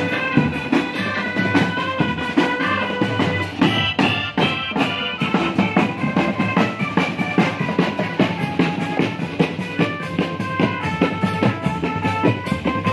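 Marching drum band playing: rapid drum strokes with bass drum under a melody of held, pitched notes.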